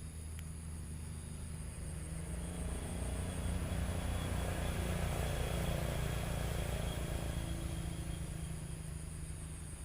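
A motor vehicle passing by: its engine hum grows louder to a peak about halfway through, then fades away.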